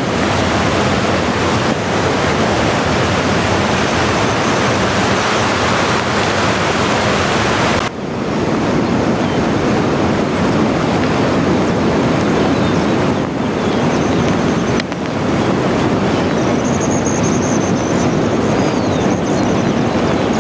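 Steady loud rush of the Cañete River, fast shallow water running over stones, with two brief dips where the sound cuts.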